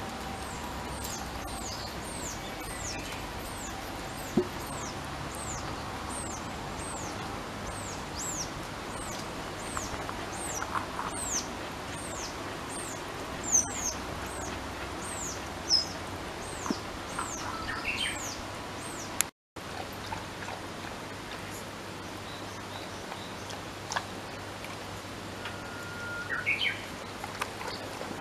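A small bird calling: a long series of short, high notes, each sliding downward, repeated about twice a second. The series stops about two-thirds of the way through, leaving only a few scattered short chirps over faint outdoor background.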